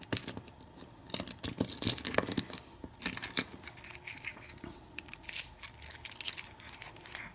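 A key sliding in and out of a KIK lock cylinder with a Kwikset keyway and being turned: clusters of small metallic clicks and scrapes, as the key is tested and found to work smoothly.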